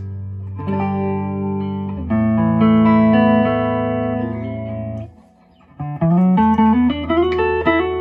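Electric guitar played through a hand-built Weber 6A20 Deluxe Reverb clone 6V6 tube amp: a few strummed chords left to ring, a short pause about five seconds in, then a quick run of single notes.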